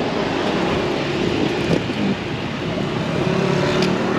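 Road traffic: a steady wash of passing vehicle noise with a low engine hum.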